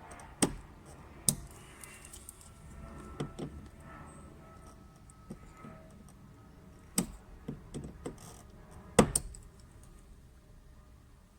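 Scattered sharp clicks and knocks of hand tools and parts being handled while working on a car's fuel pump. The loudest come at about half a second, just over a second, and around seven and nine seconds in, with quieter rattling between.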